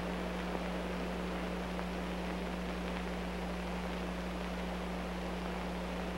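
Steady hiss with a constant low hum, unchanging throughout: the background noise of a worn, poor-quality film print's soundtrack.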